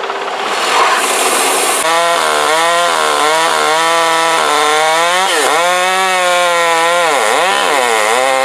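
A gasoline-powered saw running hard in a cut, its engine note dipping and recovering several times as it bogs under load in oak wood. About two seconds in, the engine tone rises out of a hissing noise.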